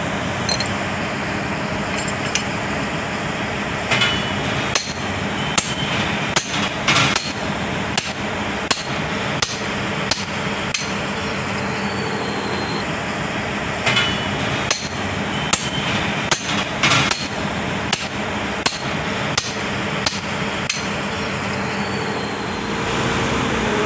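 Hammer striking steel in an irregular series of sharp clanks, about one or two a second, over a steady machinery hum.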